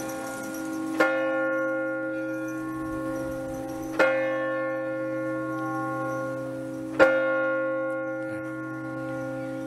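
Large tower bell striking slowly: three strikes about three seconds apart, each ringing on and fading into the next.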